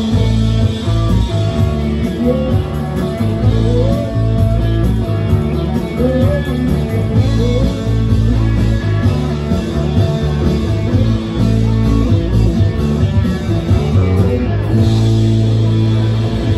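Country-rock band playing live through a PA: electric guitar, bass guitar and drums, with a lead line of short bent notes repeating every second or two.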